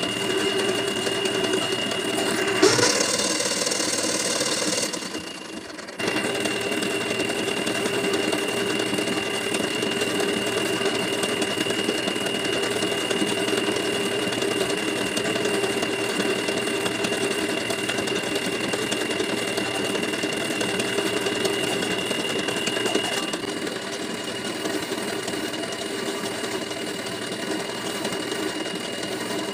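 Lathe motor running steadily as an improvised buffing machine, its spinning wheel sanding and polishing a carabao-horn slingshot frame pressed against it, with a steady high whine. A harsher, louder rasp comes about three seconds in.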